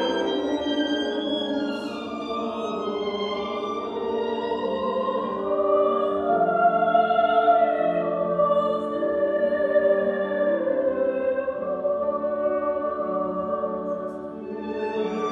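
Mixed choir of men's and women's voices singing a slow sacred choral work in long held chords, growing louder in the middle.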